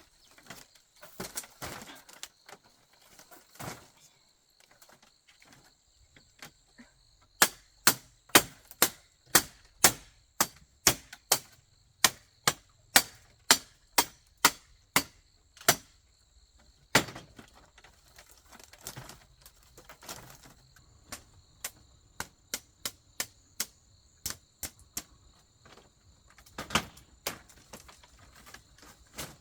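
Sharp blows of a hand tool on bamboo, a fast even run of about two strikes a second for some eight seconds, then scattered and lighter strikes with a loud pair near the end. Insects buzz steadily at a high pitch underneath.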